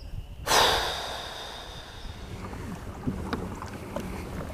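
Water and wind noise around a kayak, with a sudden loud rush of noise about half a second in that fades away over a second or so, and a few light clicks near the end.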